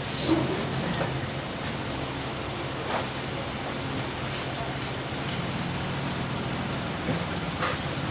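A steady low mechanical hum runs throughout, with a few short clicks and light knocks, one near the start, one about three seconds in and several near the end.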